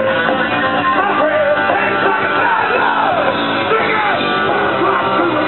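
Punk rock band playing live, loud electric guitars with shouted vocals.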